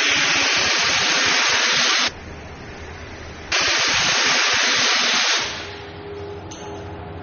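Fire extinguisher discharging in two loud hissing blasts of about two seconds each, with a short pause between them; the second one tails off.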